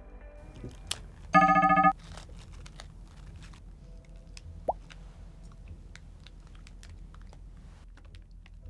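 Bag of Takis Fuego rolled tortilla chips being opened, with faint crinkling and crunching clicks throughout. About a second and a half in comes a loud electronic buzz lasting about half a second, and near five seconds a short rising whistle.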